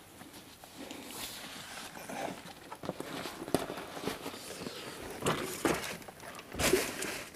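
Footsteps on a hiking trail with rustling, as irregular knocks about once a second and a louder rustle near the end.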